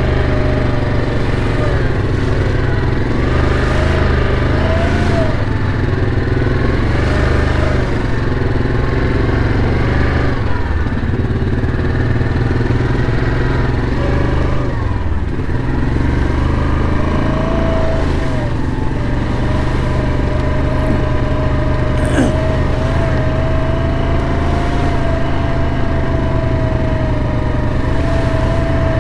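Yamaha Kodiak ATV engine running under way on a trail, its note rising and falling with the throttle, then holding steadier through the second half.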